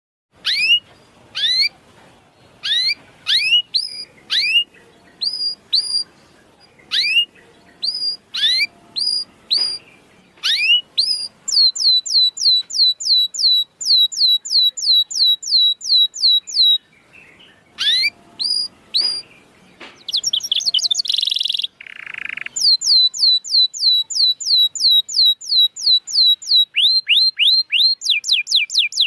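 Domestic canary singing: a series of quick rising chirps, then fast trills of short repeated notes, about six a second, broken by a short harsh buzzy note about two-thirds of the way through.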